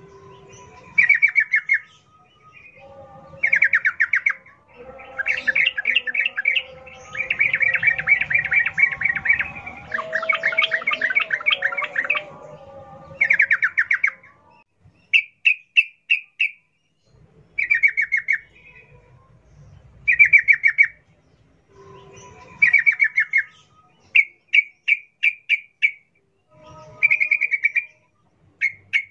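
Yellow-vented bulbul singing in short bursts of rapid, chattering notes repeated every couple of seconds, with a longer, fuller run of song in the first half. It is the wild-type 'ngalas' song, played as a lure to get caged bulbuls singing.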